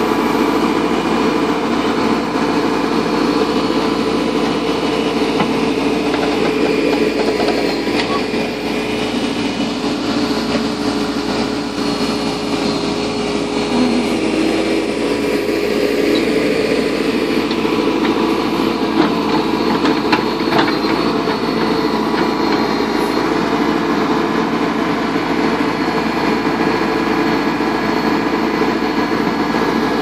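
JCB backhoe loader's diesel engine running steadily as the backhoe digs, with a few light knocks partway through.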